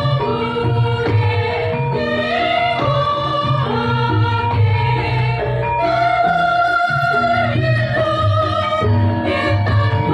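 Women's choir singing a song in held, sustained notes over a steady rhythmic low accompaniment.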